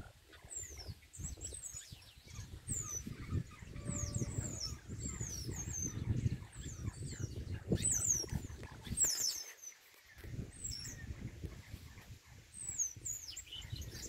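Chopi blackbirds (pássaro-preto) singing: a rapid string of high, clear whistled notes, many sliding down in pitch, over a low rumble.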